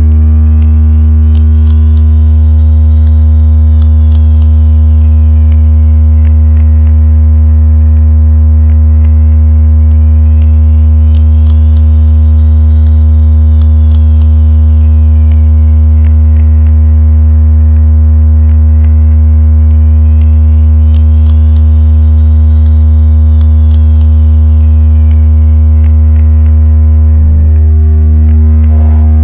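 Loud synthesized low-frequency tone, a steady deep electronic hum with a stack of higher overtones, played as a sound to attract fish. A faint high sweep rises and falls over it about every ten seconds, and there is a brief click near the end.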